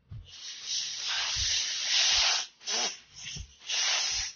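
Pressurised spray hissing in bursts: one long burst of about two and a half seconds, then several shorter ones, with a few dull knocks underneath.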